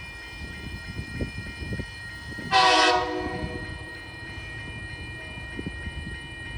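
A Tasrail diesel locomotive's horn sounds one short blast of about half a second, about two and a half seconds in. Under it the level crossing's warning bell rings steadily with a regular pulse.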